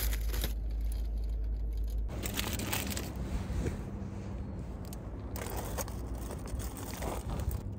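Aluminium foil wrapper being crinkled and crumpled by hand in irregular crackles. A low rumble underneath stops abruptly about two seconds in.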